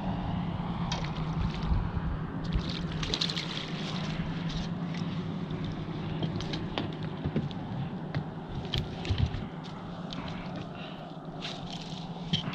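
A steady low motor hum that weakens about halfway through, with water trickling and scattered light clicks and splashes.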